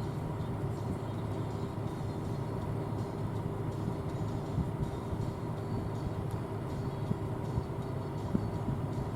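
John Deere S680 combine running steadily while harvesting corn: a low drone with a steady higher whine over it.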